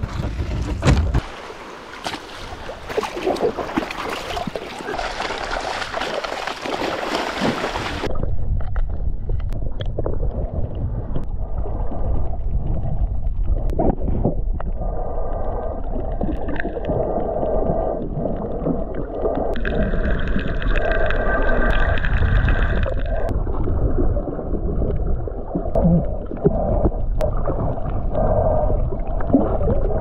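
Wind and sea noise on the microphone for the first eight seconds or so, then the sound turns suddenly muffled as the microphone goes under water. What follows is an underwater gurgle and low rumble, with a droning tone through the middle part.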